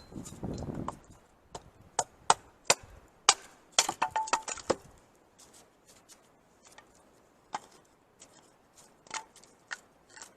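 Pieces of firewood and sticks knocking against each other as they are handled and laid down to build a campfire base over snow. It is a run of sharp wooden knocks, thickest for a few seconds after the start and sparser towards the end.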